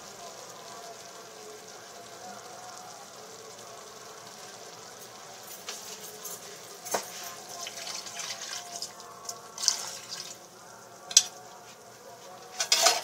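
Whole chicken sizzling in a sweet adobo sauce that has cooked down almost dry in an enamelled cast-iron pot, with sharp pops now and then. Near the end, water is poured in from a ladle and splashes into the hot pot.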